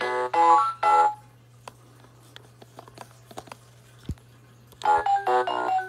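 Electronic baby crib toy playing a short run of synthesized beeping chime notes, then a quieter stretch of faint clicks as its picture spinner drum is turned by hand, with one dull knock, before another burst of chime notes near the end.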